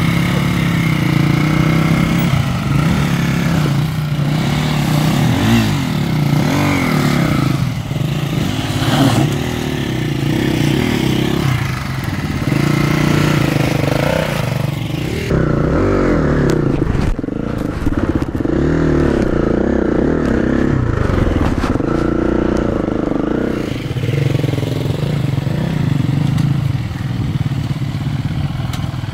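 KTM enduro dirt bike engines revving up and down repeatedly as a rider picks his way up a rocky step, with the other bikes running behind.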